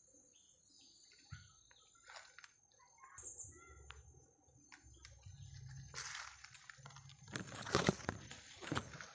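Footsteps crunching through dry bamboo leaves and twigs on the forest floor: scattered crackles and snaps at first, coming thicker and louder over the last few seconds.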